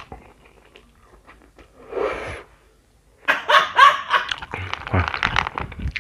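A man laughing hard and loudly from about three seconds in, after a few faint chewing clicks.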